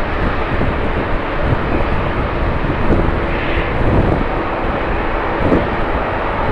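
Jet airliner engines running, a steady rushing noise, with strong wind buffeting the microphone in uneven low rumbles.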